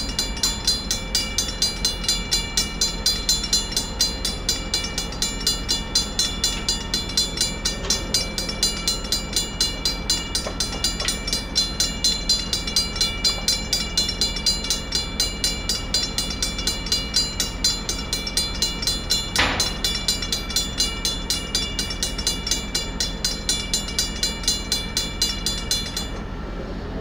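Safetran mechanical railroad-crossing bell ringing in rapid, even strokes while the crossing is activated, stopping abruptly near the end.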